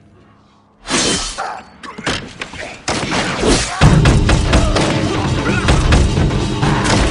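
Action-film sound mix: near quiet, then about a second in a sudden loud crash, followed by a growing barrage of gunshots, shattering and heavy impacts over a music score that becomes dense from about four seconds in.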